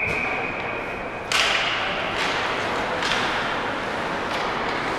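Ice hockey play: a steady high whistle tone stops about a second in, then a hockey stick cracks sharply on the puck. Several more stick clacks follow over a steady hiss of skates and arena noise.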